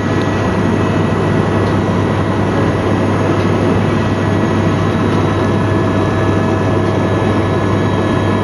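Helicopter in flight, heard from inside the cabin: the engine and rotors give a loud, steady drone, with a low hum underneath and several thin whining tones above it.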